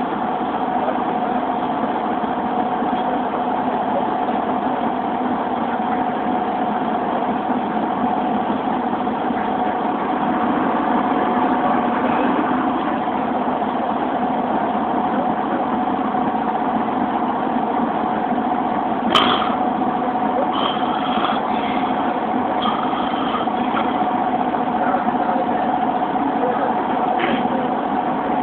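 Steady drone of the van's engine running, heard from inside the cabin, with one sharp click about two-thirds of the way through.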